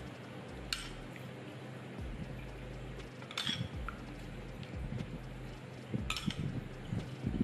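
A metal spoon clinking against a china dish: three light chinks with a short ring, a few seconds apart, over soft low knocks and a steady hum.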